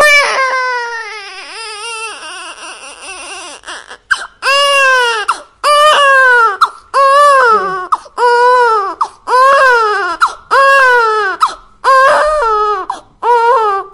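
Baby crying: one long wail that tails off over the first few seconds, then a steady run of short cries about one a second, each rising and falling in pitch.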